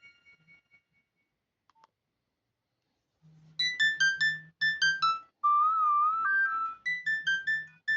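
Built-in Nokia 106 ringtones: the last notes of one tone fade out, and after about two seconds of silence the next tone starts. It plays a quick run of short electronic notes, a held wavering note, then more quick notes, with a low buzz under the runs of short notes.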